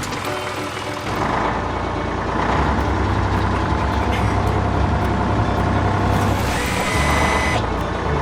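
Cartoon truck engine sound effect running steadily over background music, the low engine rumble growing stronger about a second in.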